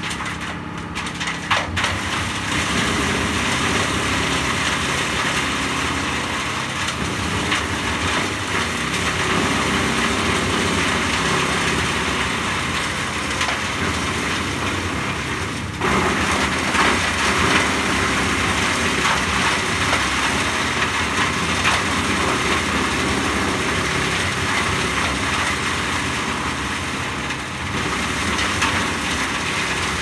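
Vandaele TV22-32 tractor-PTO-driven wood chipper chipping fed-in branches: continuous loud running of the chipper and tractor, with the wood being cut and crushed into chips. The level rises a couple of seconds in and steps up again about halfway through as more wood goes in.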